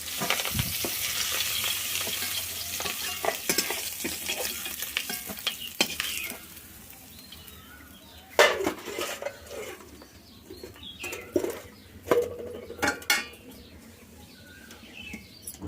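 Prawns sizzling in hot oil in a pan as they are stirred and lifted out with a spatula. The sizzling dies down about six seconds in, followed by a few clinks and knocks of the utensil against the pan.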